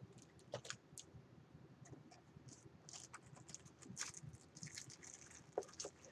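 Faint, scattered clicks and crinkles of small product packages and plastic wrapping being handled and sorted in a box.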